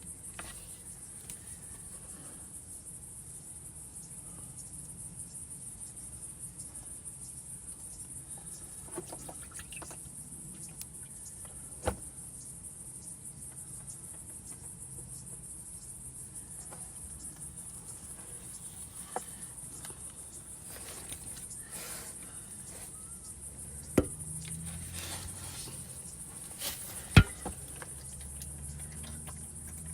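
Steady high-pitched insect chirring, broken by a few sharp knocks; the loudest knock comes near the end.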